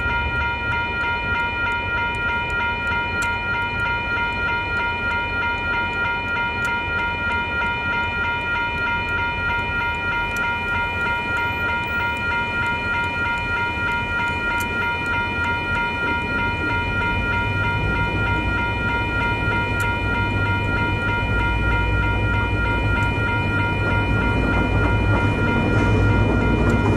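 Double-headed DFT-class diesel-electric locomotives idling while standing: a steady low engine rumble with a constant high whine on top. The low rumble grows louder over the last third.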